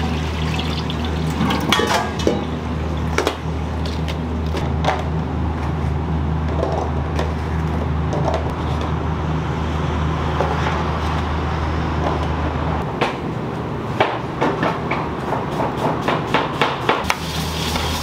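Kitchen prep clatter: scattered knocks and clinks of pots and utensils over a steady low hum. The hum stops about thirteen seconds in, and a quicker run of knocks and clicks follows.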